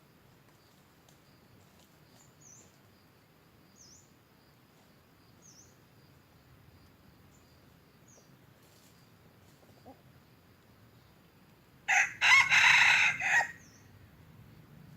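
Red junglefowl rooster crowing once near the end, a short clipped crow lasting about a second and a half and the loudest sound by far. Before it, only faint short high bird chirps over a quiet background.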